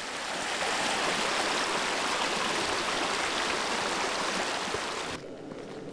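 Mountain creek rushing over rocks in whitewater, a steady rush of water that drops suddenly to a softer flow near the end.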